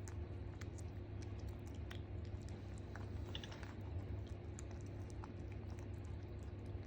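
Light, irregular clicks of typing on a computer keyboard, over a steady low hum.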